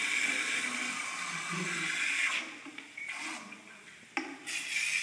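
Water pouring into a fountain basin as it is filled, a steady rush that stops about two seconds in. A knock follows, then a short rush of water near the end.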